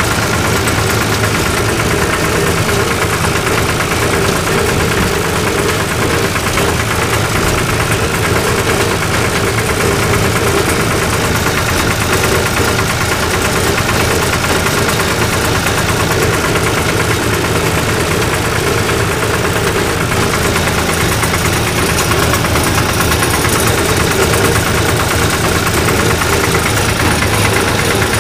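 Diesel engine of a 1974 Long 350 farm tractor running steadily and loudly at an even speed.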